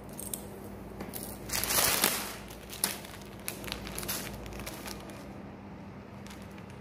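Plastic bag packaging of a fiber-optic patch cord crinkling as it is handled, loudest around two seconds in, followed by a few small clicks.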